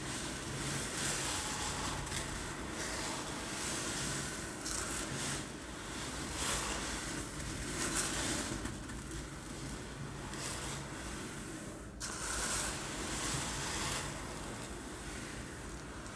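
Uncooked rice rolling and rattling in a container, making a rushing hiss that swells and fades again and again like waves breaking on a beach.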